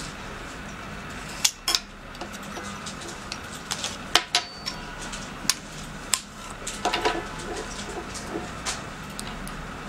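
Small metal clicks and taps as the metal case of LED lighted tweezers is opened and the metal tweezers are handled. About a dozen sharp, irregular clicks, with a quick cluster about seven seconds in, over a steady background hiss.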